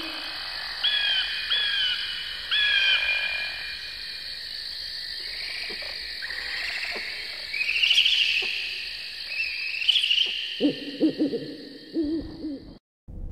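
Owl hooting over a steady high-pitched drone: three short calls in the first few seconds, two rising calls in the middle, and a quick run of low hoots near the end, before the sound cuts off abruptly.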